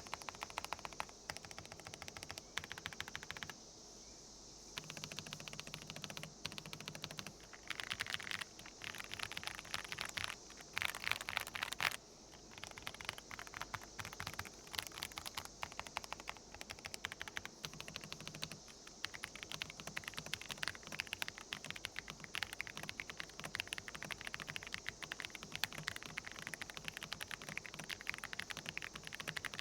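Fast typing on an AJAZZ AK980 full-size mechanical keyboard with light linear switches and Cherry-profile keycaps: a dense run of key clacks, pausing briefly twice.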